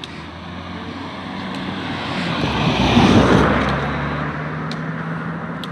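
A motor vehicle passing on the road: engine hum and tyre noise grow louder, peak about three seconds in, then fade, with the engine's pitch dropping a little as it goes by.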